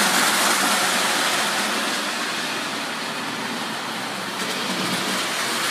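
O-gauge model steam locomotive running along the track out of a tunnel, giving a steady rushing noise of motor, wheels and rail.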